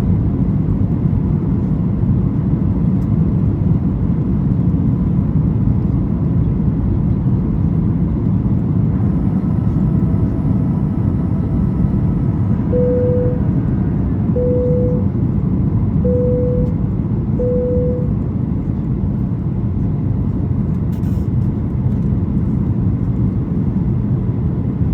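Steady low cabin noise heard from an economy seat of a Boeing 737-800 in flight: airflow and its two CFM56-7B engines. Midway through, four short identical beeps sound about a second and a half apart.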